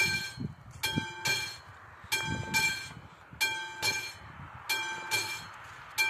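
Classic electromechanical level-crossing warning bell ringing in double strokes, a ding-ding about every second and a half, over a low rumble. It is the crossing's warning that a train is approaching, sounding with the flashing red lights.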